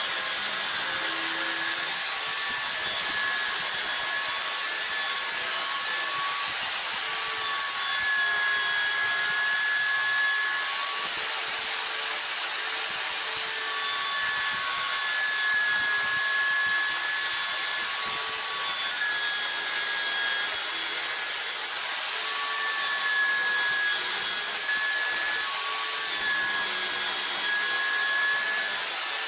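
Power tool running continuously on wood, a steady rushing noise with a whine that wavers every second or two.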